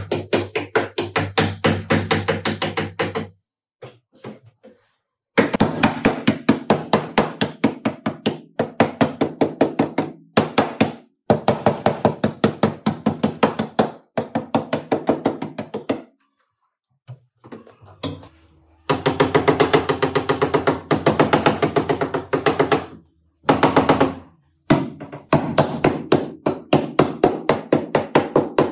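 Fast, regular knocking, about five to six strokes a second, with a steady ringing tone under it, in stretches of a few seconds that stop abruptly and start again.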